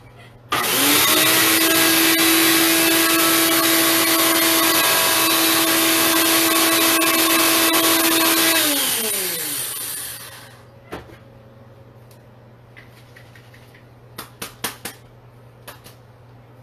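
Ninja blender motor running at full speed, chopping cauliflower into rice, a loud steady whine. About nine seconds in it switches off and the pitch falls as the blades spin down, followed by a few sharp knocks near the end.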